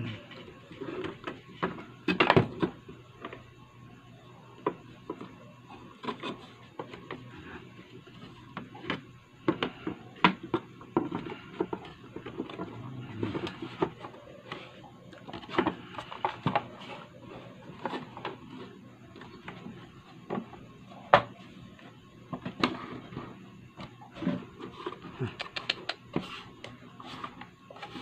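Plastic housing of a JBL Cinema SB250 soundbar being handled and fitted back together by hand: scattered clicks, knocks and scrapes of plastic parts, with a sharp knock about two seconds in and another about twenty seconds in.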